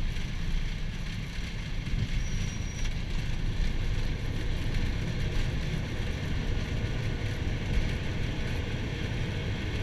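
Airbus A320 rolling out on the runway after touchdown, heard from the flight deck: a steady, dense low rumble of the engines and the wheels on the runway as the airliner slows.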